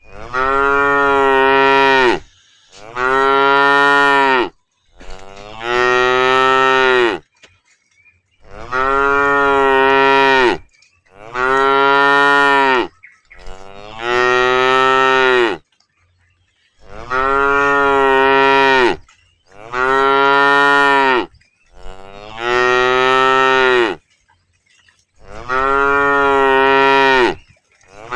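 Cows mooing: about ten long, steady moos of around two seconds each, one after another with short pauses between them.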